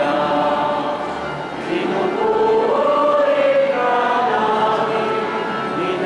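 A choir singing a slow hymn together, several voices holding long notes and moving between them, briefly softer about a second and a half in.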